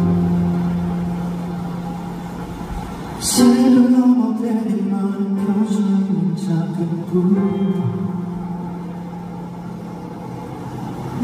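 Live music: a male singer with instrumental accompaniment. Held accompaniment notes open it, and the voice comes in about three seconds in, singing long held notes into the microphone.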